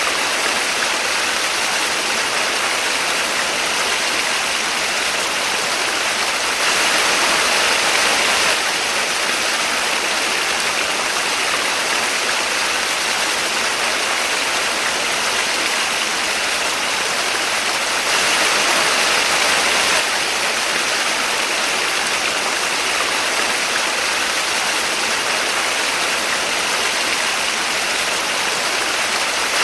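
Small waterfall splashing steadily: a constant rushing hiss of falling water. It swells slightly twice, for a couple of seconds each time.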